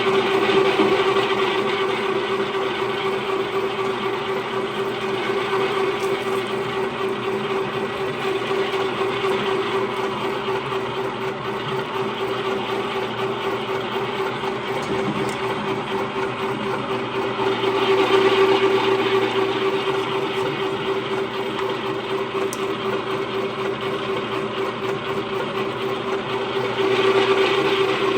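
VEVOR 1100 W electric meat grinder running with a constant motor hum as ground beef is pushed back through it with green peppers and red onions. It grows louder briefly about eighteen seconds in and again near the end.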